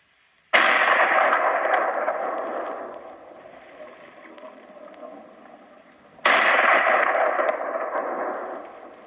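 Two rifle shots about six seconds apart. Each is a sudden loud report followed by a long rolling echo that dies away over two to three seconds.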